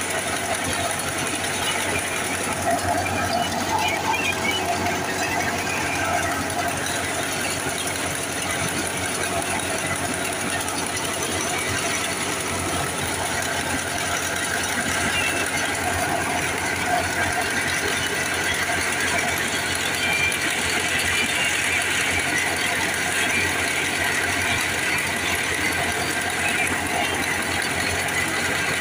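Tractor-driven wheat thresher running steadily under load as wheat is fed into it: a continuous loud mechanical din of the threshing drum and the tractor engine, with a rattle.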